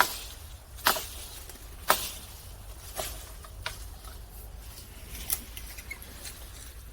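Short, sharp rustling strokes, about one a second at first and then further apart, from hand work on plants or soil.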